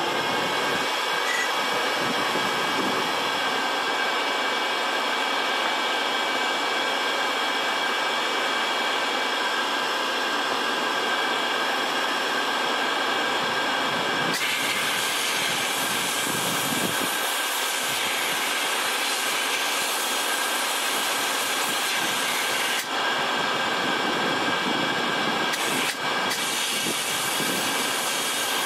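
Steady hiss of compressed air from the bead-blasting gun of a Cyclone E100 LTC benchtop blast cabinet, starting abruptly, with the whine of the shop vacuum hooked to the cabinet under it. The gun is blowing mostly air and drawing little media up its pickup tube.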